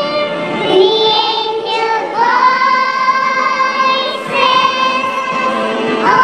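Worship song being sung in long, held notes that move to a new pitch every second or two.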